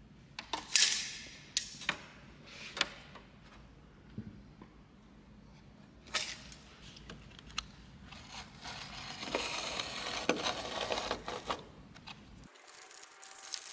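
A few sharp clicks and taps from a steel tape measure against a wooden drawer, with its blade snapping back about six seconds in. Then a stretch of crinkling, rustling plastic as a sheet of adhesive vinyl film is unrolled and handled.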